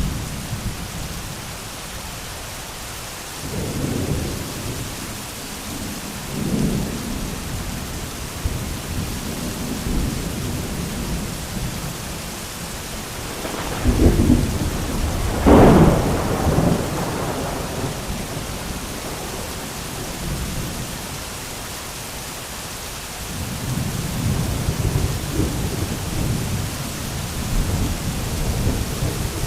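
Steady medium rain hissing, with thunder rumbling low at intervals. A louder, sharper peal comes about halfway through, and more rolling rumbles follow near the end.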